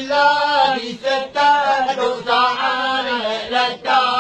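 A man singing a Malay folk song, the melody moving in long held notes with short breaks between phrases.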